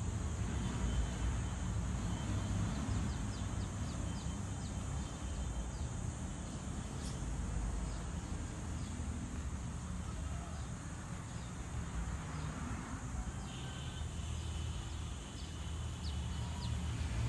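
Steady low rumble and hiss of outdoor ambience, with faint short high chirps scattered through it.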